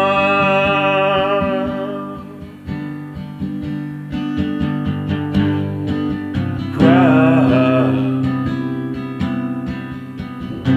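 Cutaway acoustic guitar strummed and picked in a slow ballad accompaniment. A man's voice holds out the end of a sung note at the start, fading over about two seconds, and comes in again briefly without words about seven seconds in.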